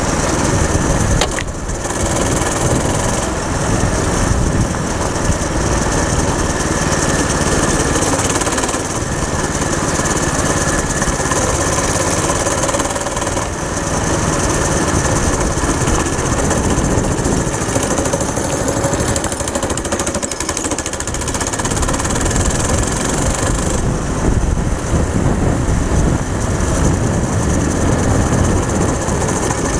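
Homemade go-kart's small single-cylinder four-stroke engine running steadily under load as the kart drives along, with wind and tyre noise; the engine seems to be bogging a little. A single sharp knock about a second and a half in.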